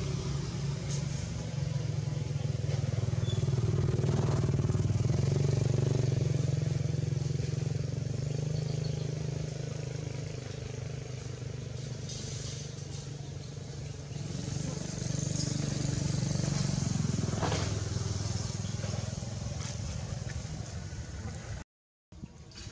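A motor engine running steadily, its hum swelling louder twice, with a couple of faint knocks.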